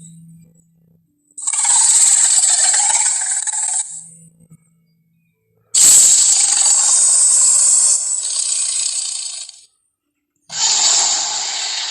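Three harsh, hissy creature roars, each lasting two to four seconds, with short silences between them: edited monster roar sound effects for Sully.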